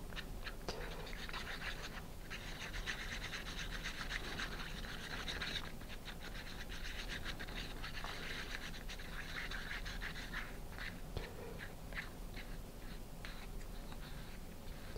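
Wooden craft stick stirring thinned carpenter's wood filler paste in a paper cup, a quiet continuous scraping with many small scrapes against the cup's sides.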